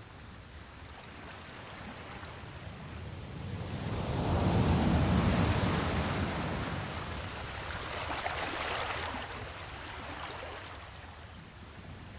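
A rushing noise with no music in it. It swells to its loudest about four seconds in, rises again around eight seconds, then dies down.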